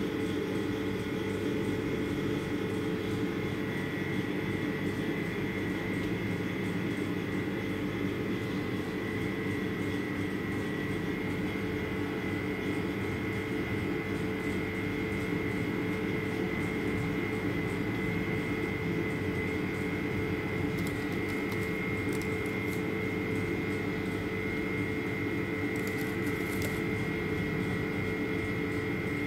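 A steady machine hum with a constant high whine above it, unchanging throughout.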